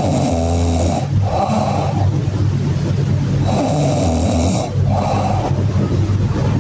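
A person snoring loudly in a regular cycle, one full snore about every three and a half seconds.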